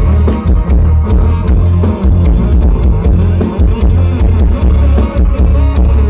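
Loud live Isan band music from a rot hae truck-mounted sound system: heavy bass and a steady drum beat, with no singing, picked up on a camera microphone.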